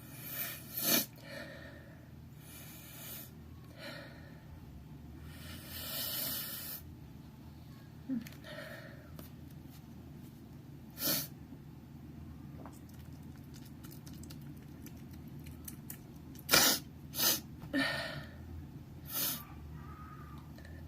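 A person with a head cold sneezing wetly several times: one sharp sneeze about a second in, another near the middle, and a quick cluster of sneezes near the end, with hissing breaths and sniffs between them.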